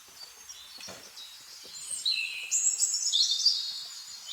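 Birds chirping and singing in quick, high warbling phrases, loudest from about halfway through.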